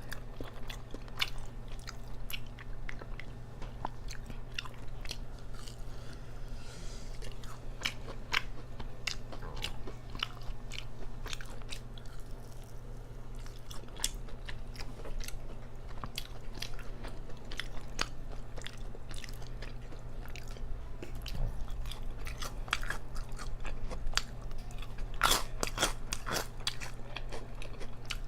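Close-miked chewing and crunching of crispy hot-Cheeto-breaded food, with many sharp crackles and a louder run of crunchy bites near the end.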